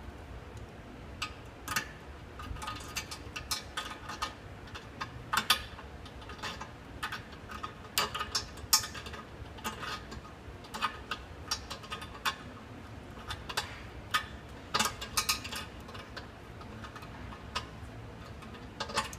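Irregular sharp clicks and taps of hand tools on the metal bolts and porcelain of a toilet tank as the tank-to-bowl bolts are tightened, some coming in quick clusters.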